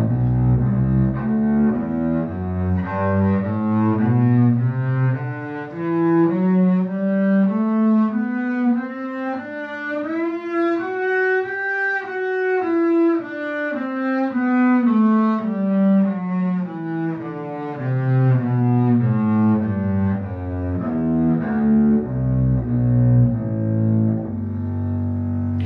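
Double bass bowed through a three-octave G major scale, one note per bow stroke (separate bows), climbing step by step to the top note about halfway through and stepping back down.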